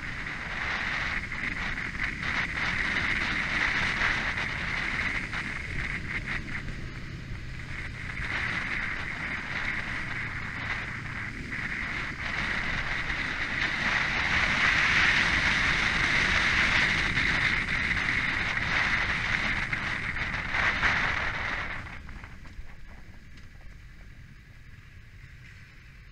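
Wind rushing over a Kawasaki Ninja sport bike's onboard camera at track speed, with the engine running underneath. The rush drops away sharply about 22 seconds in as the bike slows down.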